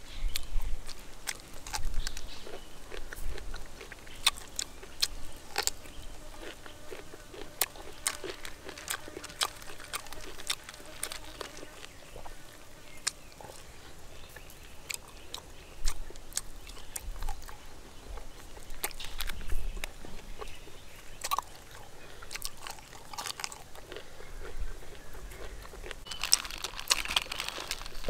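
A person biting and chewing grilled beef, with irregular sharp crunches and wet clicks throughout and a denser burst of chewing near the end.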